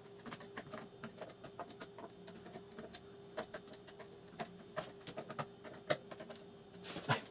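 Faint irregular clicks and taps of small parts and screws being handled as a DJ mixer's casing is put back together, over a faint steady hum.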